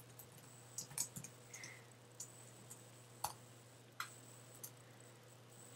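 Faint, scattered clicks of computer keyboard keys being typed, about half a dozen keystrokes spread over a few seconds, over a faint steady hum.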